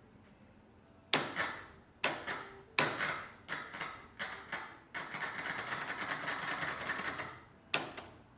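Dirty switch on a 1938 General Electric tube radio being worked: a string of sharp clicks with scratchy crackle after each, then a fast rattling run of them for about two seconds, and one last click near the end.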